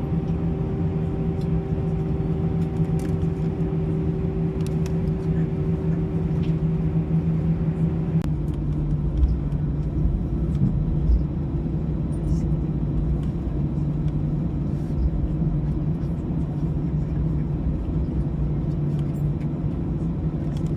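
Airbus A320 cabin noise: a steady drone of engines and air-conditioning with a low rumble. The pitch of the hum shifts lower about eight seconds in, and a few low bumps follow.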